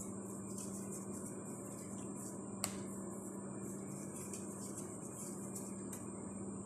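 Faint handling noises as soft bread dough is pressed and rounded into balls on a granite countertop, over a steady low hum, with one sharp click about two and a half seconds in.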